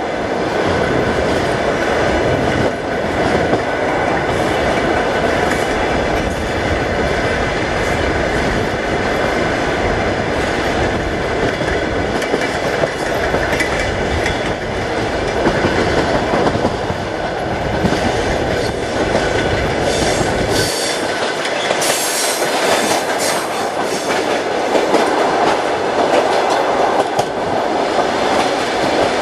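Passenger train running, heard from a carriage window: a steady rumble with the wheels clicking over rail joints and switches. The deep low rumble falls away about twenty seconds in, while sharp high clicks cluster around that point.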